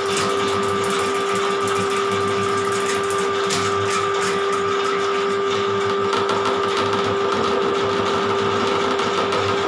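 Electric drain-cleaning machine running steadily, spinning its spiral steel cable down a clogged bathroom floor drain, with a constant motor whine.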